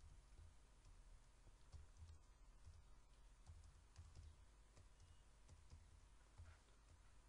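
Faint computer keyboard typing: irregular, scattered key clicks over a low steady hum.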